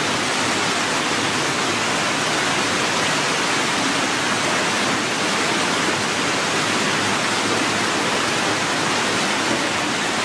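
Steady rush of running water, an even hiss without breaks.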